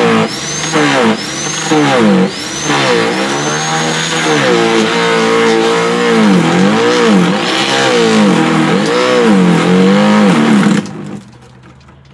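Sterwins 2500 W electric garden shredder chewing branches, its motor pitch sagging and recovering again and again as each branch loads the cutting disc. Near the end it cuts out suddenly: the disc has jammed on a chip and the automatic cut-off has stopped the motor.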